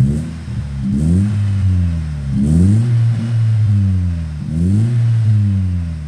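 GM C20NE 2.0 four-cylinder engine revved in about four quick blips, each rise in pitch falling back toward idle. It breathes through a 2-inch JK straight-through sport muffler held by hand onto the end of the exhaust pipe.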